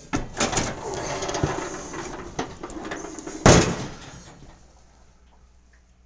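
Handling noise as the camera is moved by hand: uneven rubbing, scraping and knocking, with one loud thump about three and a half seconds in, dying away by about five seconds.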